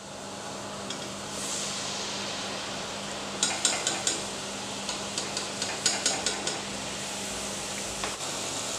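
Rice-flour batter sizzling in hot coconut oil in a metal kadai as the batter-coated rose cookie mould is lowered in, the frying hiss swelling about a second and a half in. Two runs of quick metal clinks, utensils against the pan, come in the middle.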